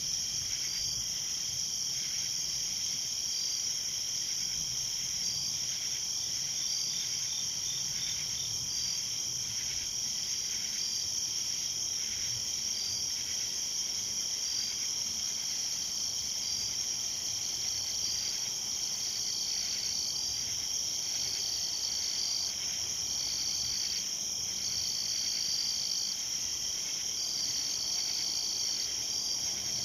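Night insect chorus of crickets: a steady, high-pitched trilling, with a second caller in short repeated trills that grow longer toward the end, and a brief run of evenly spaced chirps about six seconds in.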